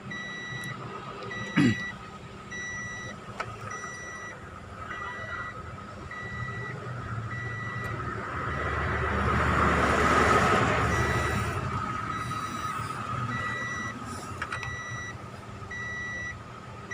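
A repeating electronic warning beep, a little more than one a second, sounds steadily throughout. A rumbling, rushing noise like an engine swells up to its loudest just past the middle and fades away again.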